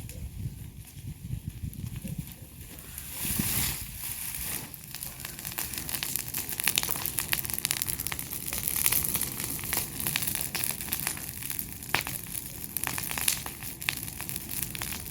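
Dense crackling and rustling of dry weeds and brush, with a short louder rush about three and a half seconds in and many sharp snaps after it.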